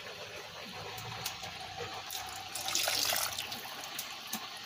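Chicken broth poured from an enamel pot into an enamelware pan, the liquid splashing and swirling in the pan, with a few light clicks.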